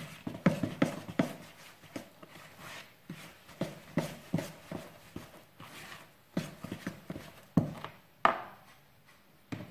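Flour being worked into soft yeast dough in a plastic bowl: irregular light knocks and rubbing from the hand, the fork and the bowl shifting on the countertop.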